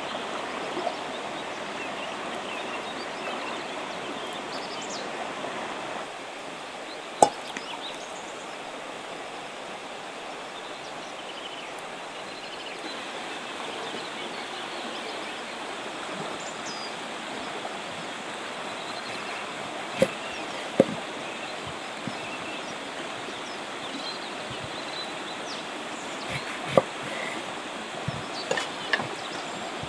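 River water running steadily. A few sharp knocks and clicks from kitchen work stand out above it, one about a quarter of the way in and two around two-thirds. A cluster near the end is a knife cutting bitter oranges on a wooden board.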